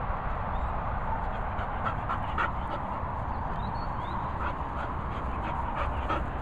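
A dog giving a few short, high whimpers as it plays, over a steady low rumble.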